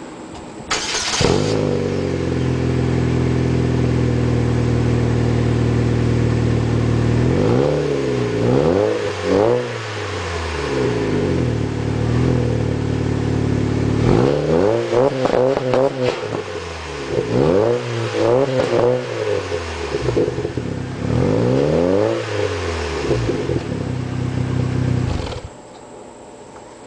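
2004 Chevrolet Cavalier's 2.2-litre Ecotec four-cylinder, fitted with a Vibrant cat-back exhaust with 2 1/4-inch piping and an AEM cold air intake. It starts about a second in and idles, then is revved in short blips, each rising and falling, in two groups. It shuts off near the end.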